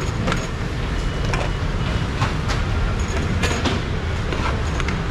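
A steady low rumble of background noise, with irregular sharp clicks of a small knife cutting fruit against a plastic cutting board.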